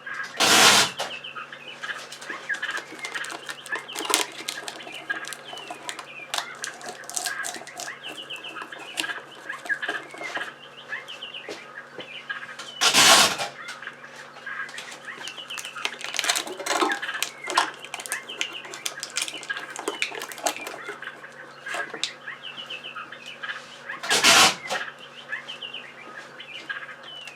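Songbirds chirping and singing throughout over a faint steady hum. Three brief loud noises break in: one about half a second in, one about halfway through and one near the end.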